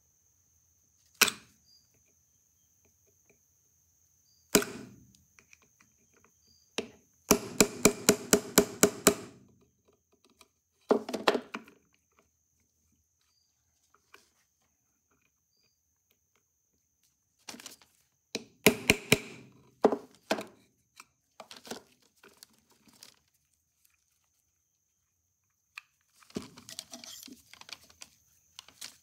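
Hammer tapping a small pin punch against the gear arbor of a Victor II phonograph spring barrel to drive a pin out: sharp metal taps. A single tap, another, then a quick run of about nine taps at roughly five a second, followed by later clusters of taps.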